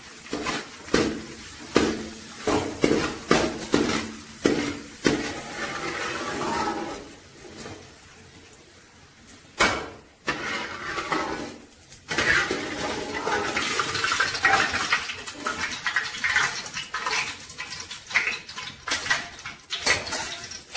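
A metal slotted spoon scraping and clinking against an aluminium pan while cashew nuts and raisins fry in hot oil. The pan rings at each stroke for the first few seconds; from about halfway there is a steady sizzle with scattered clicks of the spoon.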